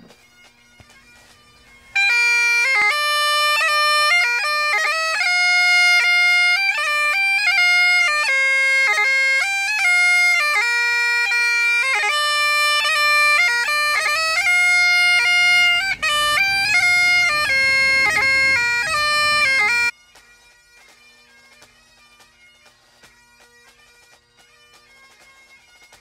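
Great Highland bagpipes playing a tune, the chanter's melody moving quickly from note to note. It starts about two seconds in and cuts off abruptly about eighteen seconds later.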